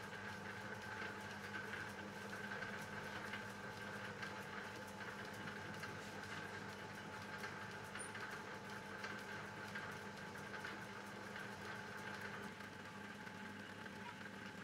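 Homemade metal lathe running at a steady speed, its motor and belt drive giving a steady hum with a higher whine. In the second half, a lathe tool bit cuts the end of the spinning steel bar.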